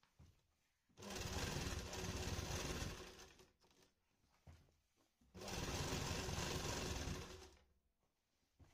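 Sewing machine stitching fabric in two runs of about two seconds each, starting abruptly, with quiet pauses between.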